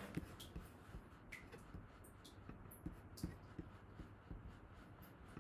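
Faint, irregular clicks of a computer keyboard and mouse, a dozen or so light taps spread through a low steady room hum.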